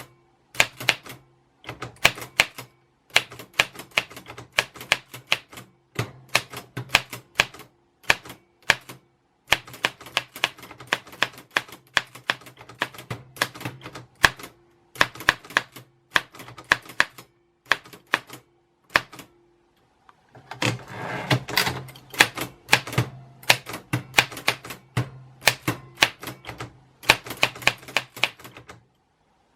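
Typewriter keys struck in quick runs of clacks separated by short pauses, with a denser rattling stretch a little past two-thirds of the way through.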